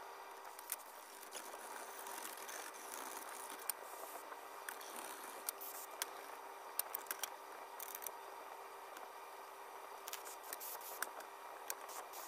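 Scattered light clicks and taps of small metal lantern parts being handled, at irregular intervals, over a faint steady hum.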